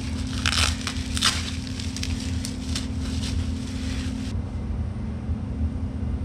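Clicks and rustles of motorcycle parts being handled, stopping about four seconds in, over a steady low hum.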